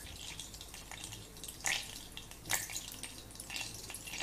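Chopped almonds frying in hot ghee in a small steel pan: a faint sizzle with scattered crackles, and two louder pops around the middle.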